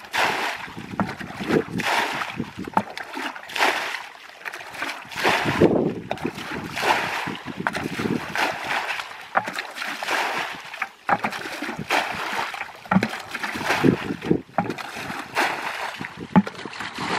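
Bucket bailing muddy water out of a shallow ditch: repeated splashes and sloshes as water is scooped up and thrown out, about one every second or two.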